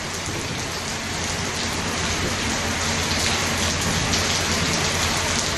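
Steady rain pattering on a roof and on wet ground, a dense even hiss that grows a little louder about two seconds in.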